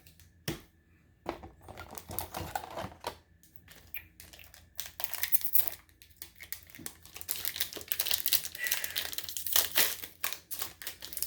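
Foil trading-card booster-pack wrapper crinkling as it is handled and opened: a dense, irregular run of crackles, sparse at first and louder and thicker from about five seconds in.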